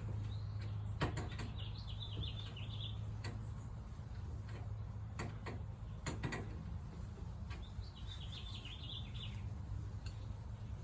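A steady low hum, with scattered sharp clicks and knocks. Two short, quickly wavering chirping phrases come about two seconds in and again about eight seconds in.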